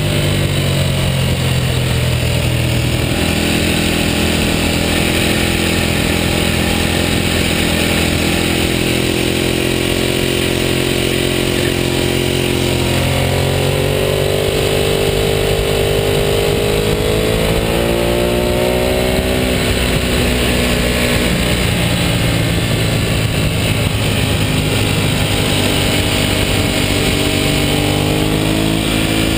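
Ducati L-twin superbike engine pulling at speed, its note stepping up, climbing under throttle and dropping back as the revs change. Steady wind and road noise run underneath.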